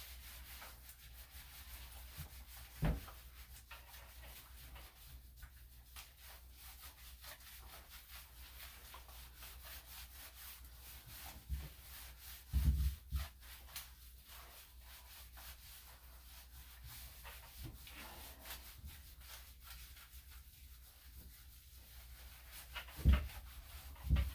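Grooming tools working through a poodle mix's coat: a steady rubbing with many faint ticks, and a few louder knocks, a cluster of them about halfway through and two near the end.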